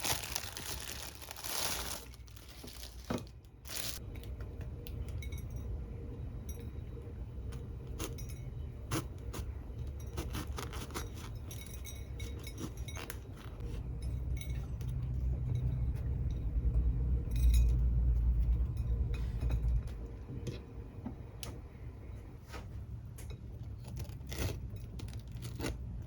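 Light clinks and taps of glass and small hard objects being handled, scattered irregularly over a low rumble that swells about halfway through.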